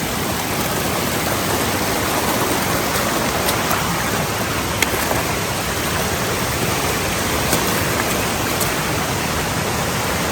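Stream water rushing steadily, a mountain feeder stream running high after heavy rain, with a few faint sharp ticks over it.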